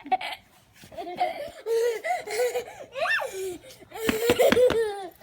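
Laughter: a person laughing in voiced rising and falling sounds, breaking into a run of quick laughs about four seconds in.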